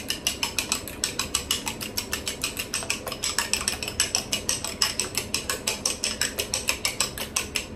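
Fork beating eggs in a ceramic bowl, clicking against the bowl's side in a quick steady rhythm of about six or seven strokes a second.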